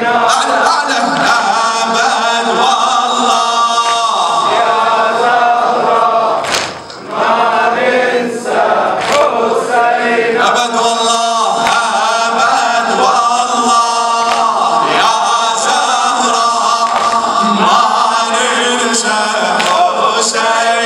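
A man chanting a Muharram lament (noha) into a microphone, with many voices chanting in chorus. The chant drops briefly about seven seconds in.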